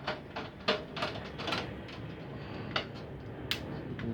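Scattered clicks and knocks of a computer DVD drive being taken apart by hand, its metal and plastic parts clacking as they are handled and pried at, with about half a dozen sharp clicks.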